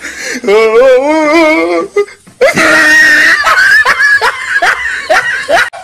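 A person laughing hard in a high, warbling voice. After a short break about two seconds in comes a louder shrieking laugh, then shorter bursts of laughter.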